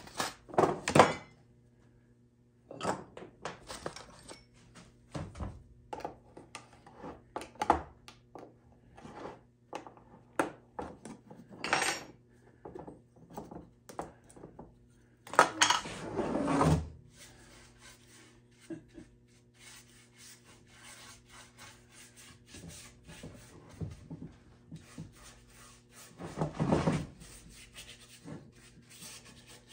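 Workbench handling sounds: scattered knocks, taps and clatter as a metal stain can and small wooden drawers are picked up and set down, with cloth rubbing stain onto wood, over a low steady hum. The loudest clatter comes about 12 s, 16 s and 27 s in.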